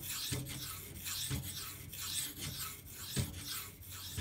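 K390 steel knife blade being drawn in repeated strokes across a wet 2500-grit silicon carbide water stone: a continuous scraping hiss made of separate strokes.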